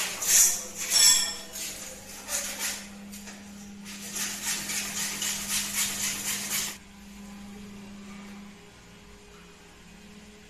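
Hacksaw cutting through a white PVC pipe: a run of quick back-and-forth sawing strokes, about three a second, that stops suddenly near seven seconds in. Before it, a couple of sharp knocks with a brief ring as the pipe is handled, and a steady low hum underneath.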